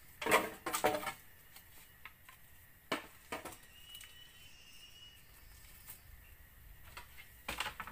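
Cut bamboo poles knocking and clattering against one another as they are handled from a pile, loudest in the first second, with a few more knocks at about three seconds and again near the end.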